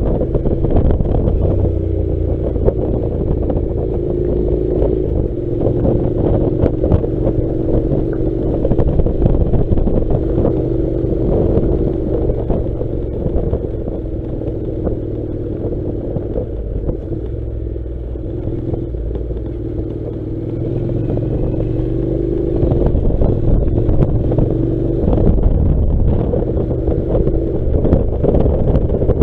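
Honda NC700's parallel-twin engine running as the motorcycle rides along a gravel track, with wind buffeting the microphone and a loose clatter from the gravel. The level dips through the middle and picks up again over the last third.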